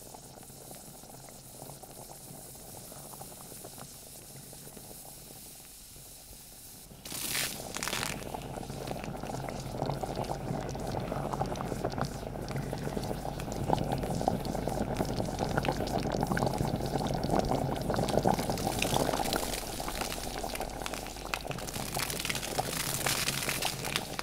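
Volcanic sulphur-spring pool of grey mud-water boiling hard, bubbling and spluttering continuously, with steam vents hissing. The bubbling gets louder about seven seconds in.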